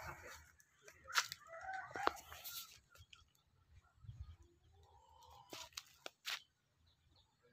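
Chickens clucking faintly in short calls, with a few short sharp clicks.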